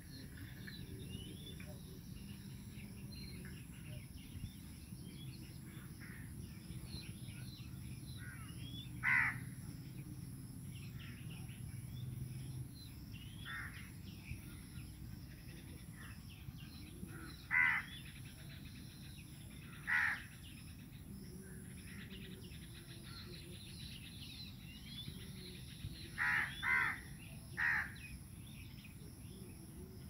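Crows cawing: a few single caws spaced several seconds apart, then three in quick succession near the end, with faint chirps of smaller birds and a steady low hum behind them.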